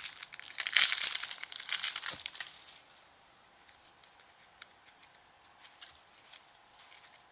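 Plastic wrapper of a trading-card pack crinkling loudly as it is handled and torn open for about the first two and a half seconds, then only faint clicks of cards being handled.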